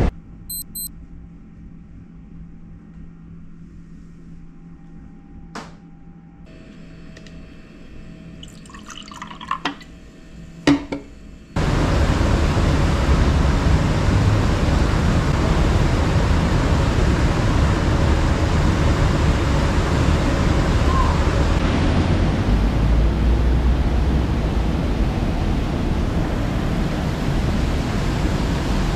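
Quiet indoor room tone with a faint hum and a few sharp clicks. About eleven seconds in, a loud, steady rush of wind and city traffic noise from a high-rise balcony cuts in and continues.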